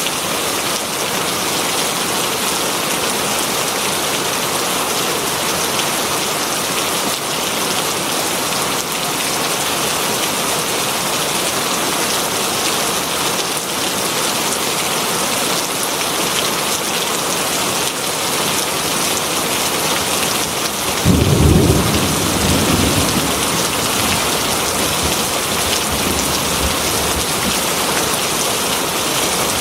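Heavy rain falling steadily on leaves. About two-thirds of the way through, a sudden clap of thunder rumbles low and fades out over several seconds.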